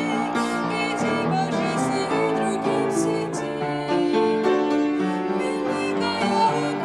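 A woman singing a slow Russian Christian song, accompanying herself on a grand piano.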